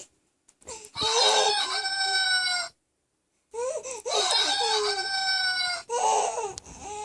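Recorded rooster crowing twice from a children's electronic animal-sounds book's small speaker, each crow long and drawn out, with a shorter call near the end.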